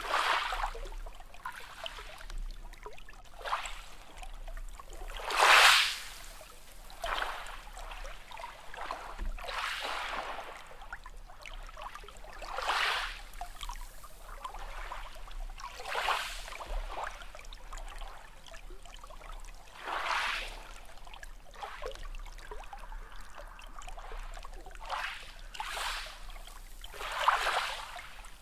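Small sea waves lapping and splashing: a wash of water every few seconds at an irregular pace, the loudest about five and a half seconds in.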